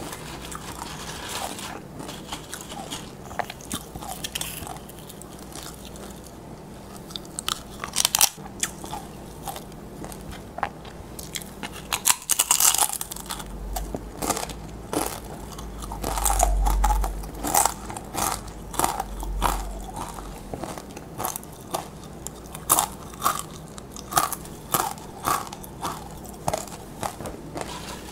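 Close-miked biting and chewing of tortilla chips: crisp, irregular crunches, the loudest about a third of the way in and the crunches coming thicker near the end. A low rumble sounds for a few seconds in the middle.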